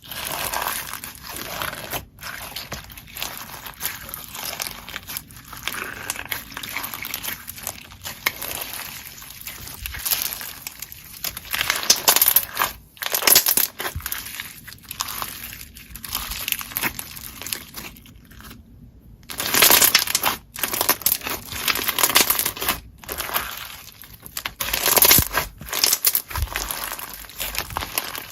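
Hands pressing, squishing and stretching slime, giving a continuous run of dense, clicky, sticky handling sounds. These come in a series of short clips separated by a few brief, sudden drop-outs.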